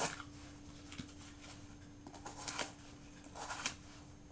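Benchmade 615 Mini-Rukus folding knife's S30V blade slicing through cardboard in a few short rasping strokes, with a pause between each.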